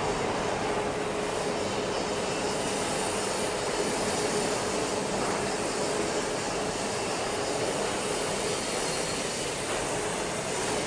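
Steady din of machinery running in a steel fabrication workshop: an even hiss with a constant hum.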